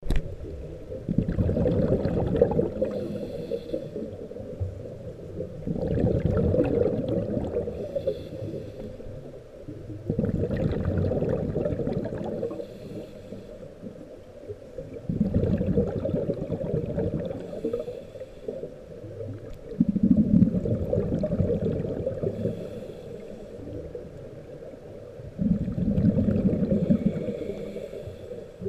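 Scuba diver breathing through a regulator underwater: a low rush of exhaled bubbles about every four to five seconds, six breaths in all, each followed by a thinner hiss.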